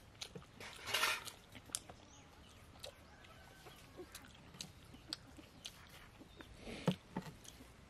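Quiet eating sounds: scattered chewing clicks and mouth smacks, with two louder noisy sounds, one about a second in and one near the end.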